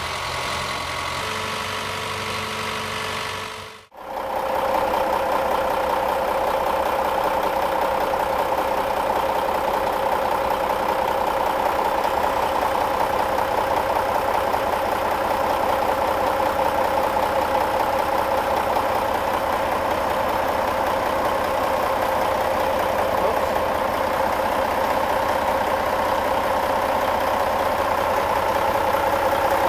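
A warm truck diesel engine idling steadily, heard up close. It begins after a brief break about four seconds in, and a different steady hum comes before the break.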